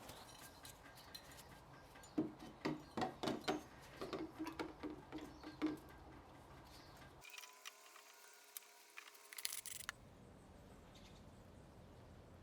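A run of light metal-on-metal taps, about three a second, each with a short ring, lasting about four seconds, then a few faint clicks.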